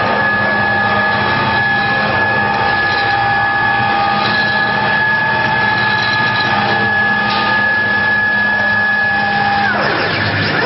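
Woodworking CNC router running with a steady high-pitched whine, its pitch sliding down near the end.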